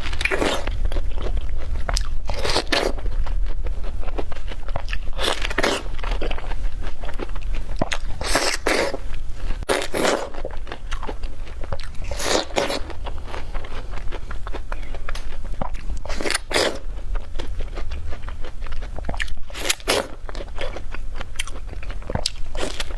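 Close-miked biting and chewing of a crisp red-skinned pear. Juicy crunches come about every two to three seconds, about nine in all, with chewing in between.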